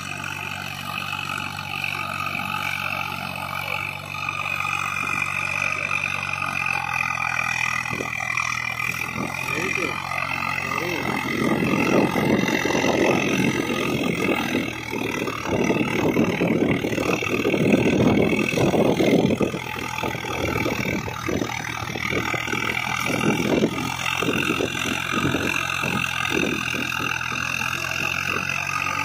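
Swaraj 744 FE tractor's three-cylinder diesel engine running steadily under load while it works through deep mud. About halfway through, a louder rough rushing noise rises over the engine for several seconds, then eases off.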